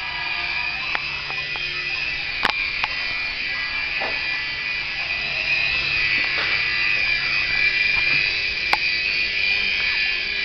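Small RC helicopter's electric motor and rotors spinning with a steady high-pitched whine, with a couple of sharp clicks.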